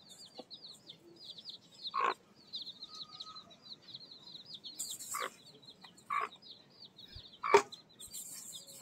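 A brood of newly hatched chicks peeping continuously, a quick run of high, falling peeps several times a second, with the mother hen close by. A few short, louder sounds cut in, the loudest about seven and a half seconds in.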